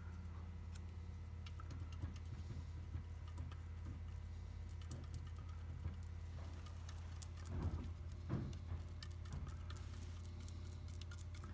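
A small brush dabbing and stroking epoxy along a wooden keel joint, giving scattered light ticks that grow denser toward the end, with a couple of soft bumps in the middle. A steady low hum runs underneath.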